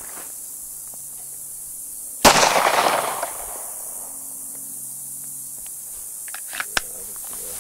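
A single handgun shot about two seconds in: a sharp crack with a tail of echo dying away over about a second. Two or three small sharp ticks follow near the end.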